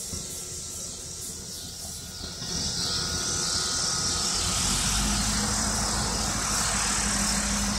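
A vehicle's engine running with a steady low hum that grows louder about two and a half seconds in, over a high steady hiss.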